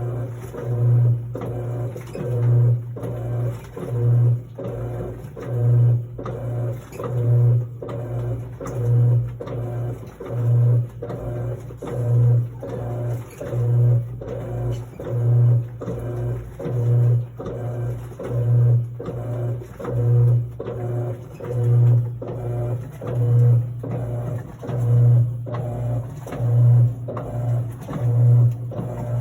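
Electrolux LT09E 8.5 kg washing machine running its quick wash cycle. The motor hum swells in regular strokes about every second and a half, the rhythmic drive of the wash action.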